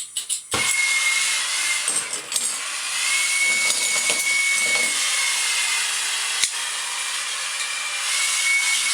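Handheld gas torch lit with a few igniter clicks, then burning with a steady hiss and a faint whistle that comes and goes. The flame is heating a seized shower faucet cover and screw to free them.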